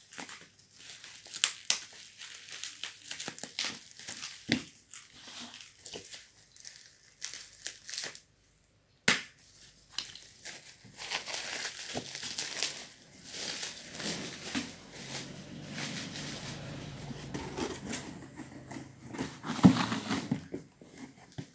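Plastic bubble wrap crinkling and rustling as it is handled and pulled off a package by hand, with many sharp crackles. The sound cuts out briefly about eight seconds in, then the rustling comes back denser.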